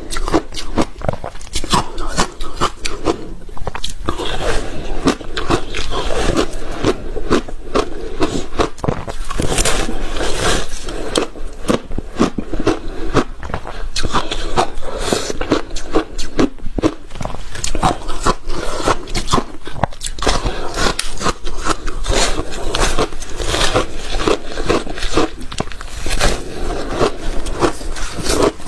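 Close-miked crunching of ice being bitten and chewed, with dense, irregular sharp cracks in quick succession.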